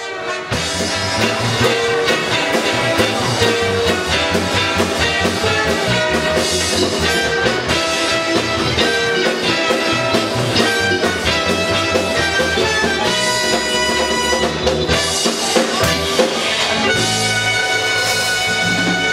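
Live band playing an instrumental number with a steady beat, on drum kit, electric bass and electric guitar.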